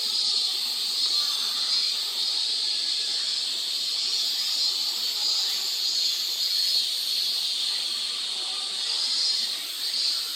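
Steady, high-pitched hissing drone that swells and fades gently, with no distinct parakeet calls.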